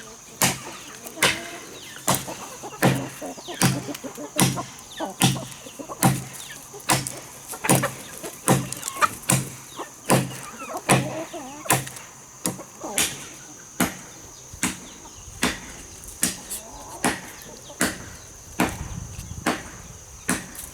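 Steady, evenly paced chopping of wood with a blade tool, one sharp strike about every 0.8 seconds, over a steady high-pitched hiss.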